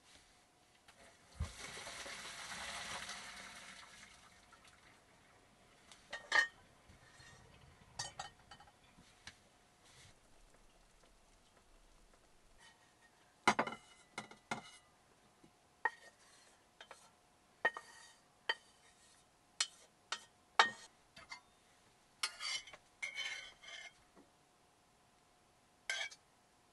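A metal saucepan and spoon clinking and scraping against the pan and a ceramic bowl as pasta and sauce are served: a run of separate sharp knocks and clinks, thickest around the middle and near the end. About two seconds in there is a brief rushing hiss.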